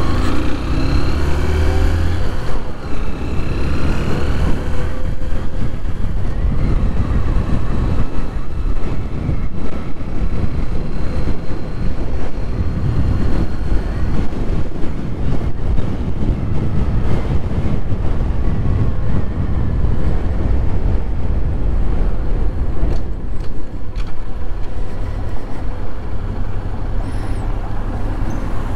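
Honda motorcycle engine running under way, heavy wind rumbling on the helmet-mounted microphone, with the engine pitch rising in the first few seconds as it accelerates.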